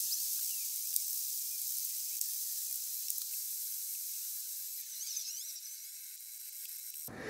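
Hand file rasping across the machined metal surface of a model-locomotive cylinder block: a steady, high hiss that slowly fades, with a few faint clicks.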